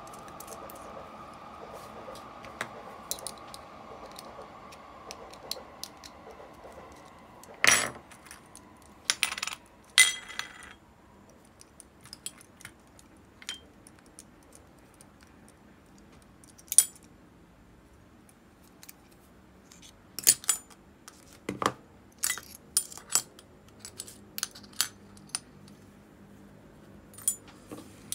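Metal parts of an Abu Garcia Ambassadeur 5500C baitcasting reel and small stainless parts cups clinking and tapping as they are handled and set down on a wooden table: scattered sharp clicks and clinks, two of them about eight and ten seconds in ringing briefly like struck metal.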